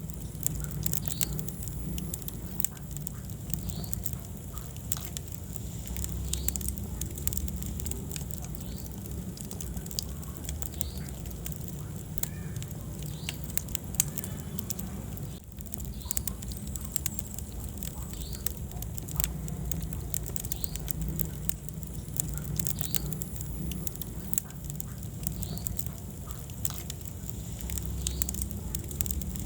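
Wood fire burning in a fireplace: a steady low rumble of flames with frequent sharp crackles and pops.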